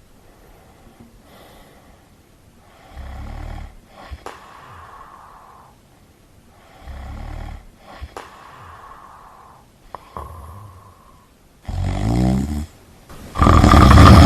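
A person snoring, one drawn-out snore every few seconds, getting louder toward the end, the last with a rising pitch. Near the end a much louder, pitched blast begins.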